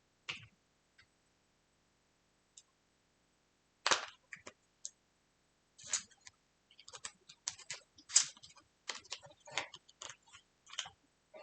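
Small product packaging being handled and opened by hand: a few isolated clicks, a louder rustle about four seconds in, then a dense run of quick crackling and clicking in the second half.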